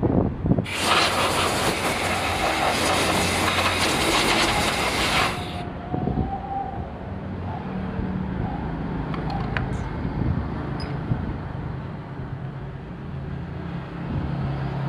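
A loud hiss lasting about five seconds, starting and stopping sharply, over a steady low mechanical hum.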